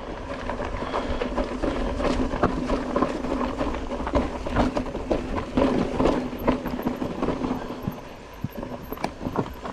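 Mountain bike descending a rough, rocky trail: irregular clatter and knocks from tyres, chain and frame over rocks, over a rushing low rumble.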